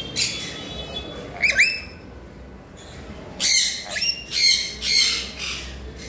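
Lories squawking: harsh, rasping calls, one at the start and one with a rising note about one and a half seconds in, then four or five in quick succession from about three and a half seconds in.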